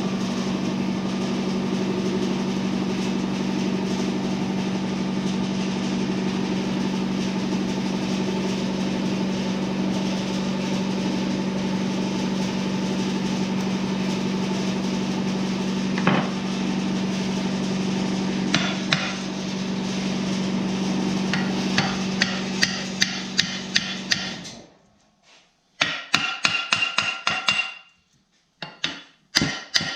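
Shop air compressor running with a steady low hum, then shutting off suddenly near the end, followed by quick runs of sharp metal taps from a hammer, several a second.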